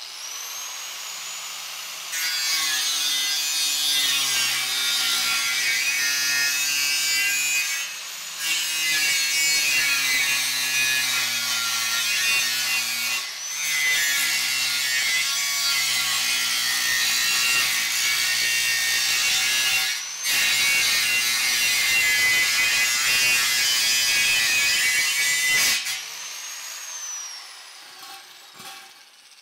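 Angle grinder spinning up with a rising whine, then cutting through the stainless steel top of a beer keg with a loud, high grinding screech. The cut eases off briefly a few times. Near the end the grinder is lifted off and winds down with a falling whine.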